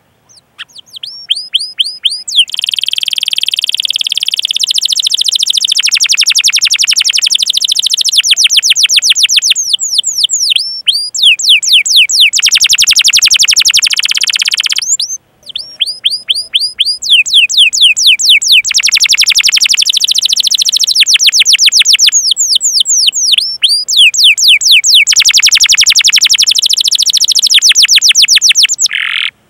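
Domestic canary singing a long, loud song: runs of sharp, falling 'cuit' chirps at about five a second alternating with fast rolling trills. The song breaks off briefly about fifteen seconds in and again near the end.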